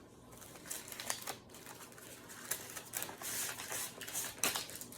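Pokémon card packaging being handled and opened: irregular light clicks and rustling of paper and plastic as cards are pulled out, with a few sharper clicks near the end.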